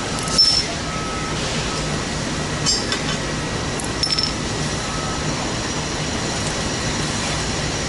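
A few light metallic clinks from pins being popped out of a Roadmaster tow bar's arms, over a steady low hum.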